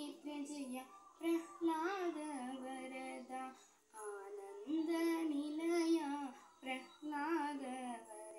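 A young girl singing a song, in three long phrases with held, wavering notes and short breaths between them.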